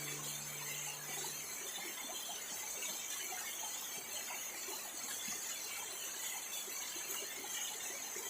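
Steady high-pitched insect chorus, with the tail of background music fading out in the first second or so.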